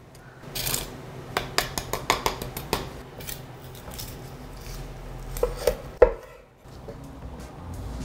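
Knife cutting into a roasted rack of lamb on a cutting board: a run of irregular clicks and taps of the blade against the board, with one sharp knock about six seconds in.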